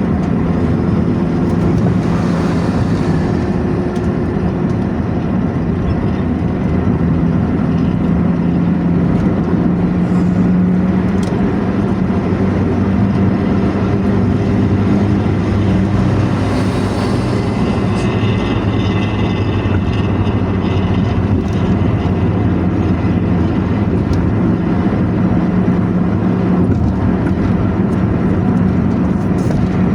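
Intercity bus's diesel engine running at speed through a modified 'knalpot ngorok' (snoring) exhaust: a steady, deep drone whose pitch drifts slightly, mixed with road noise.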